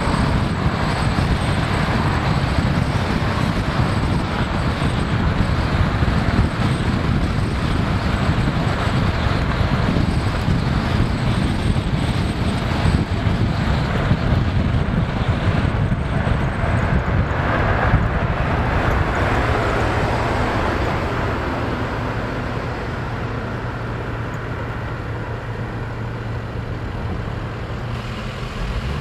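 Rushing wind and road noise from a pickup truck driving, picked up by a camera in the open truck bed. Over the last several seconds it eases off as the truck slows to a stop, leaving a steady low engine hum.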